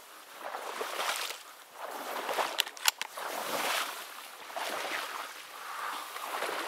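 Rhythmic swishing movement through water, a swell about once a second, with two sharp clicks near the middle.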